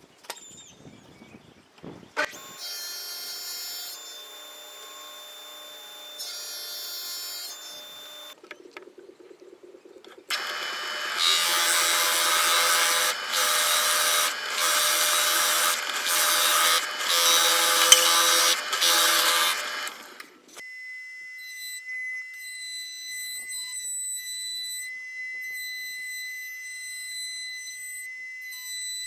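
Workshop power tools running in turn. First comes a whining tool, then a louder cutting or sanding noise that surges about once a second. Last is a steady high-pitched whine.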